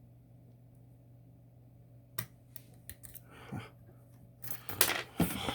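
Lock picks working the levers of a Tann lever lock: a sharp metal click, a few lighter clicks, then a louder burst of metallic clattering near the end as the lock is picked open.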